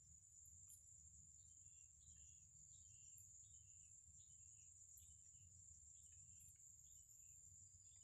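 Faint, steady high-pitched trilling of insects, with short bird chirps scattered through it and a low, even rumble underneath.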